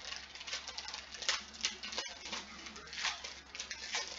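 Foil trading-card pack wrapper crinkling and rustling as it is torn open by hand, a run of irregular crackles.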